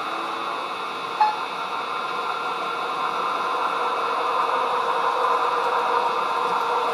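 Roco model rail bus running under digital control, its sound decoder playing a steady diesel running sound through the model's small speaker. There is a short sharp click about a second in.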